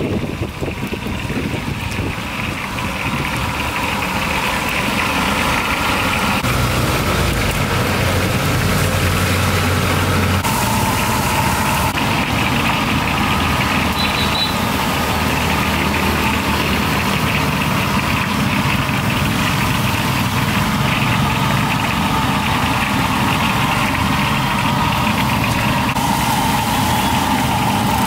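Engines running steadily in a continuous drone. A deeper low hum joins for a few seconds and cuts off suddenly about ten seconds in.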